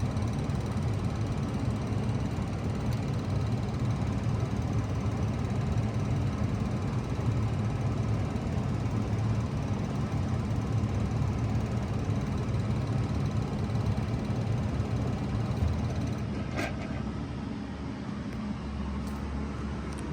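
2000 Bard 3-ton wall-hung heat pump running in heat mode with a steady low hum. About three-quarters of the way through there is a click and the sound drops as the unit shuts down, leaving a quieter steady hum.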